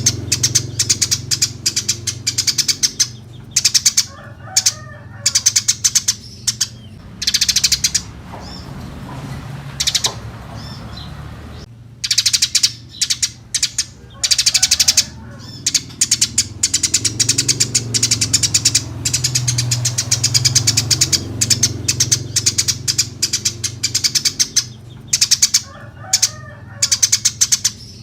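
Eurasian tree sparrows chirping vigorously in fast, dense runs of high chirps, with a quieter gap of a few seconds near the middle. A low steady hum runs underneath.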